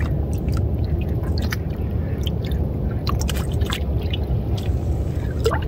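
A hand rummaging in shallow water in a mesh fishing net, with small splashes and wet squelches scattered through, over a steady low rumble.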